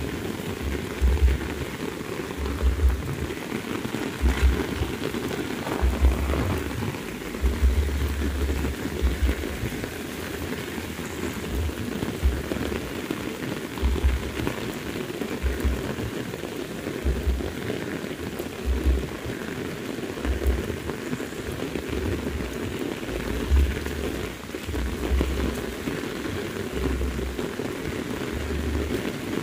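Heavy rain falling steadily, a dense even hiss of drops on the wet road and vegetation, with irregular low rumbles coming and going underneath.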